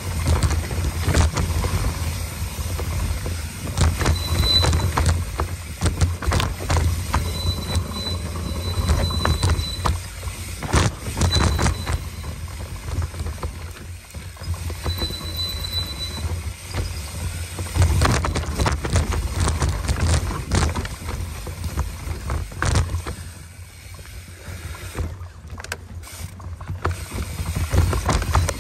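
Mountain bike riding fast down a dirt singletrack: tyres rolling over dirt, rocks and roots, and the bike rattling and knocking over the bumps, with wind rumble on the handlebar-mounted camera's microphone. A few brief high-pitched squeals in the first half.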